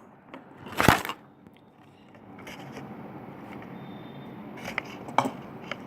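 Handling noise of a plastic fidget spinner: one sharp clack about a second in, then faint hiss with a few light clicks near the end.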